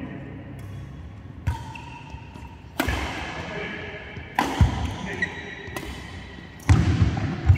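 Badminton rally: a shuttlecock struck by rackets four times, each hit a sharp crack that echoes in the large hall, with short squeaks of shoes on the court mat between the hits.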